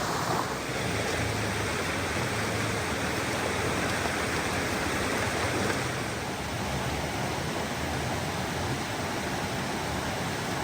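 Waterfall rushing, a steady dense wash of falling water.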